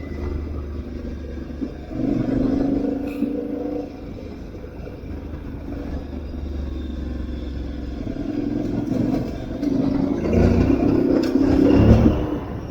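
Aprilia Tuareg 660's parallel-twin engine running under changing throttle, easing off and pulling again, loudest about ten seconds in.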